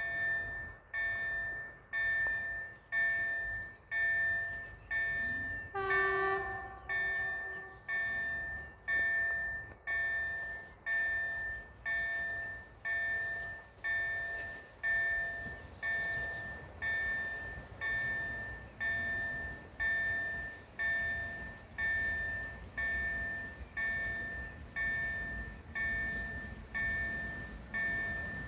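Railway level-crossing warning bell striking steadily about once a second, each stroke ringing and fading, signalling that a train is approaching. About six seconds in, a brief distant horn sounds, and a low rumble of the approaching train grows near the end.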